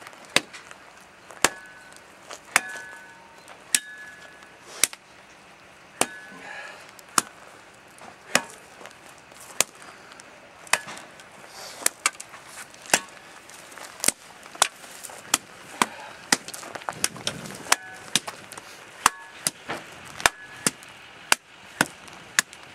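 A long-handled pick striking into red clay soil, shaping a drainage ditch by hand: sharp strikes about once a second, coming closer together in the second half.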